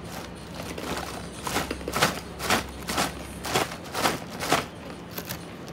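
Crisp crunching of a snack being chewed close to the microphone, about two crunches a second for some three seconds.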